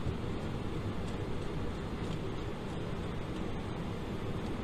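Steady, even background hiss and hum of room noise, with no distinct knocks or clicks standing out.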